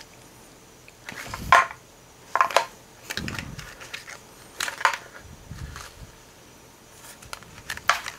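Hollow white plastic fuel tank of an HPI Baja 5B being handled and turned over in the hands: a string of irregular light knocks and rubbing sounds, a few with a dull thud.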